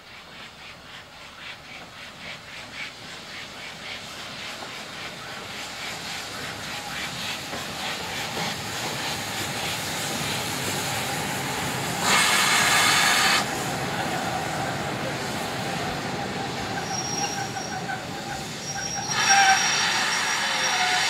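Steam locomotive and train running slowly alongside a platform, growing louder as they draw near, with a steady squeal. A loud burst of steam hiss comes about twelve seconds in and lasts about a second, and another loud hiss comes near the end.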